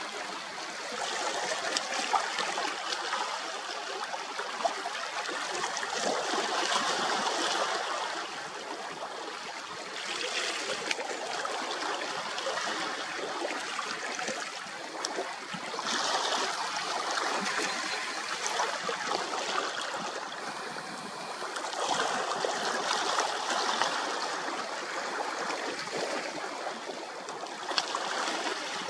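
Small waves lapping and trickling among shoreline rocks, swelling and easing every five or six seconds.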